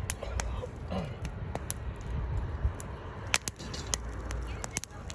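Wood fire crackling, with sharp irregular pops and snaps from the burning firewood over a low rumble.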